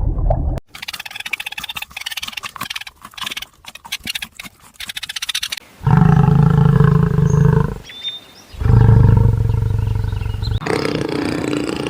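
A farm animal gives two long, low, loud calls, about six and nine seconds in. Before them come several seconds of crackling, clicking noise.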